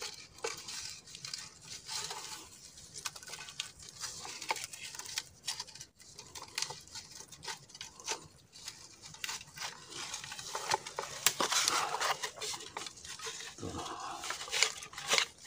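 Hands working a mud lobster out of a bamboo tube trap in wet mud: irregular scraping, clicking and rustling of bamboo, mud and leaves, growing busier about ten seconds in.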